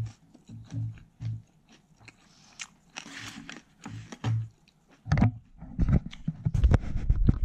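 Close-miked chewing of a lettuce wrap of thin-sliced pork belly, about two chews a second, with crunching. About five seconds in, louder, denser crackling and knocking takes over.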